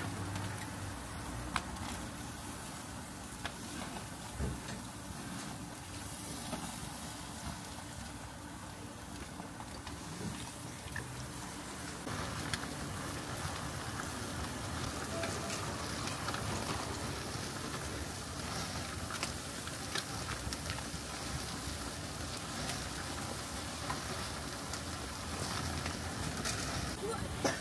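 Chicken skewers sizzling on a yakitori grill with the steady rush of the grill's fire, and occasional light clicks as skewers are turned. The sizzle grows louder about twelve seconds in.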